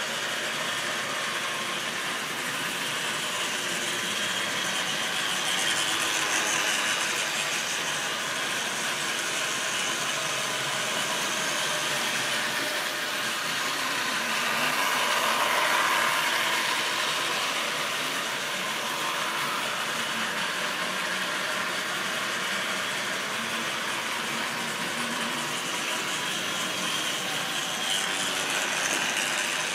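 Model railway train running on the track: the whirr of the locomotive's small electric motor and gears with the rolling noise of wagon wheels on the rails. It swells three times as the train passes close by.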